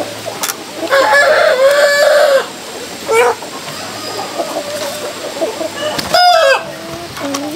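A flock of chickens clucking, with roosters crowing: a long crow about a second in and another loud crow around six seconds, with shorter calls between.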